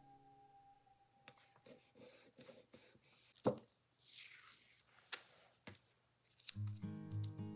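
Hands handling paper and craft supplies: scattered clicks and taps, a sharp click about three and a half seconds in, then a brief falling rasp. Music fades out at the start and comes back in near the end.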